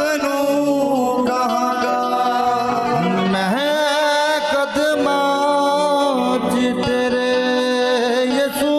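Live devotional worship song: a man singing long, wavering held notes over harmonium and other instrumental accompaniment.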